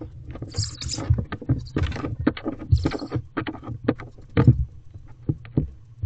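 Barn owls shuffling and flapping inside a wooden nest box: irregular knocks and scuffles of wings and feet against the box, with a short hissing call about half a second in, over a steady low hum.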